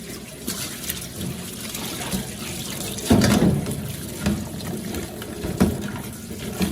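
Water splashing and sloshing as a handful of vegetable roots is rinsed by hand, with irregular louder splashes.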